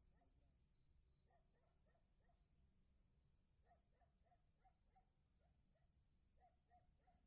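Near silence: a faint, steady high-pitched night insect chorus, likely crickets, with scattered faint short chirps in clusters.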